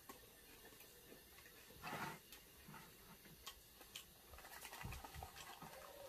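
Faint chewing of egg rolls and the light crinkle of their paper wrappers as two people eat, heard as scattered small clicks and rustles, with a brief louder rustle about two seconds in.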